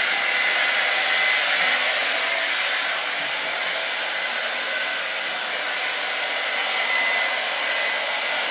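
Blow dryer running steadily: a continuous rush of air with a thin steady whine in it.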